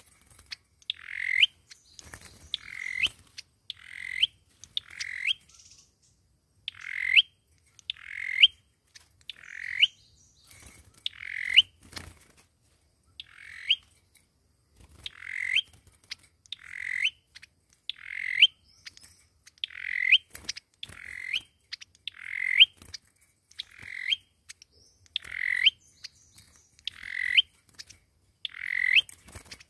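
A sâu dừa bird (Vietnamese 'coconut' songbird) giving its dueling song: short clear calls repeated about every second and a half, each rising and ending in a sharp upward flick. This is the challenge song that is played to draw rival birds.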